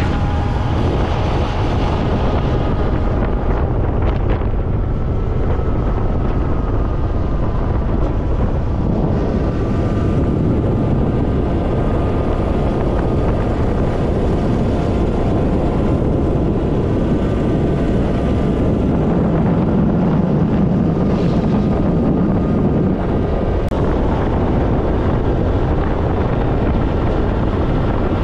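Heavy wind buffeting on the microphone of a moving motorcycle, with the engine's steady cruising hum faintly underneath.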